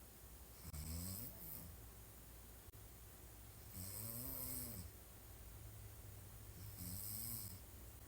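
A woman snoring while sleeping on her back: three snores about three seconds apart, each rising and falling in pitch.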